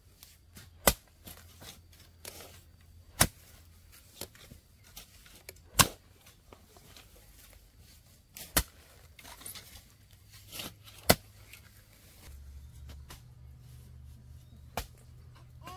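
Sharp knocks or chopping strikes. Five loud ones come about every two and a half seconds, with a softer one near the end and fainter ticks in between.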